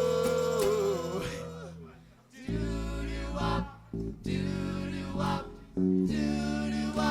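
A band's song: a held sung note fades out over the first two seconds. After a short pause, guitar and bass play an instrumental break of sustained chords, cut by two brief stops.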